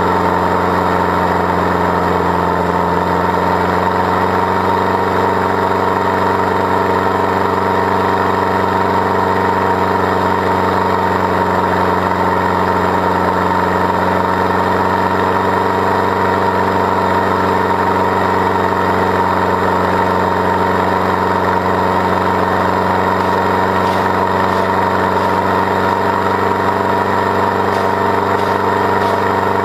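Decatted Land Rover Defender engine running steadily under load while towing a loaded trailer uphill, holding constant revs.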